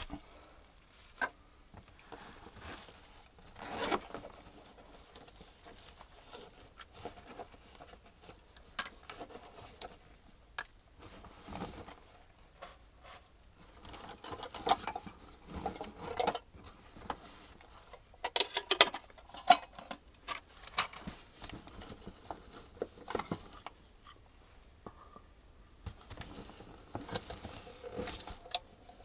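Gear being unpacked from a backpack by hand: rustling of the pack's fabric and straps, with scattered clicks and soft knocks as small items are set down on rock. The handling is busiest and loudest in the middle stretch.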